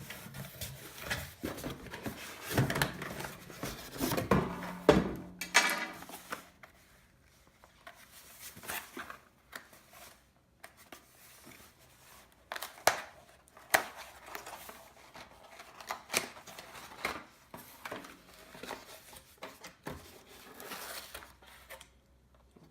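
A cardboard box and its packaging being opened and handled: tearing, crinkling and scraping for the first few seconds, then scattered clicks and knocks as the contents are lifted out.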